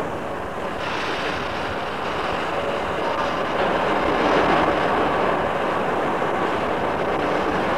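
Sydney 'Red Rattler' electric suburban train moving through the station, heard on a 1969 cassette recording: a steady running rumble that grows louder about a second in and is loudest around the middle.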